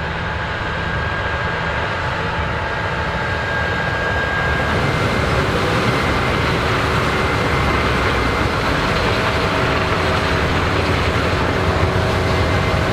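Combine harvesters and tractors harvesting corn: a steady mechanical roar of engines and machinery with a few faint whines, slowly growing louder.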